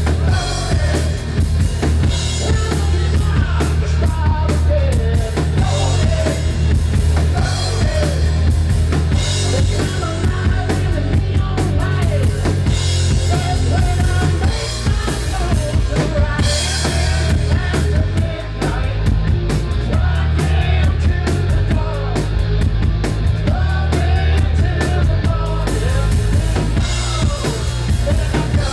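Live rock band playing a song: drum kit with kick and snare, electric guitars and bass, and a singer at the microphone, loud and continuous.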